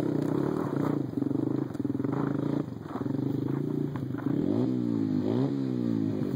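A small engine running steadily, then revved so that its pitch rises and falls over the second half.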